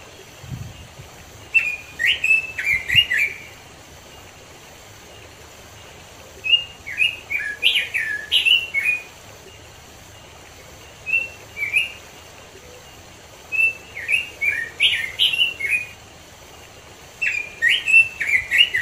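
Red-billed leiothrix (Pekin robin) singing: five bursts of quick, warbling whistled phrases, each one to two and a half seconds long, separated by pauses of a few seconds.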